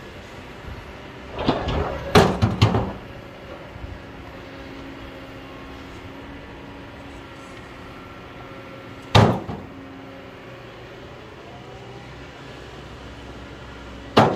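Excavator on a rocky hillside: its diesel engine runs steadily, broken by sharp knocks of rock on rock or metal — a quick cluster about two seconds in, a single knock near the middle, and another at the very end.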